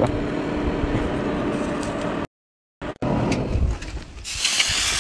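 Steady rushing noise of a coal forge under forced air, with a faint low hum, that cuts off abruptly about two seconds in. After a short silence, other workshop noise follows, with a hiss rising near the end.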